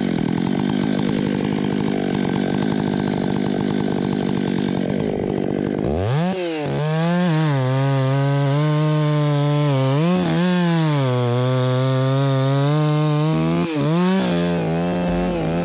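Stihl MS 661 two-stroke chainsaw at full throttle, bucking a felled white fir log. Its engine pitch dips and rises as the chain loads and frees in the cut, and about six seconds in the sound turns clearer and more wavering.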